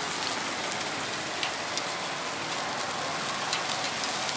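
Beef skewers sizzling on a grill: a steady hiss broken by a few small crackles and pops.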